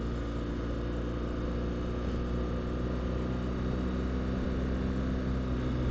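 BMW R1200GS Adventure's flat-twin boxer engine running at a steady, even pitch while riding along a dirt road.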